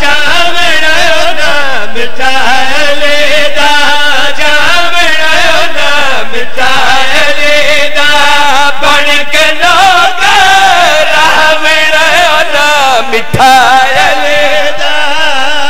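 A man's voice chanting a devotional qasida in praise of Ali through a microphone and PA, loud and unbroken, in long wavering melismatic phrases.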